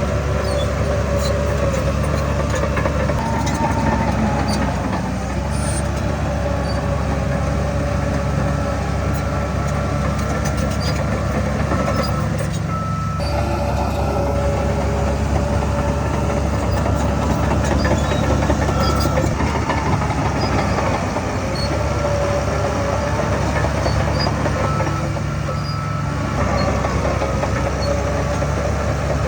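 Heavy earthmoving machinery's diesel engines running steadily under load, with a steady high whine over the engine rumble that drops out briefly about halfway through.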